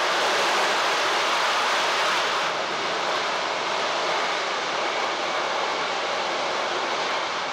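Boeing C-17A Globemaster III's four Pratt & Whitney F117 turbofans running loud during a short-field landing rollout, a steady rushing jet noise that eases a little after about two and a half seconds.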